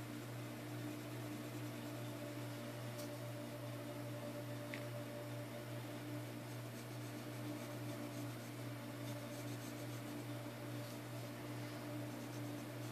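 Pencil scratching lightly on paper in small strokes, over a steady low electrical hum.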